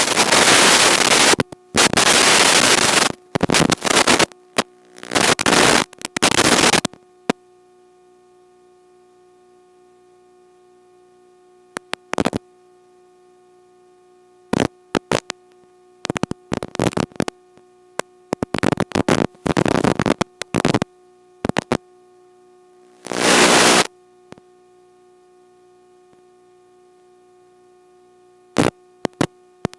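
FPV video-receiver audio: a steady electronic buzz broken by loud bursts of radio static that cut in and out. The static is nearly continuous for the first seven seconds, then comes in shorter scattered bursts, the sign of the video link breaking up.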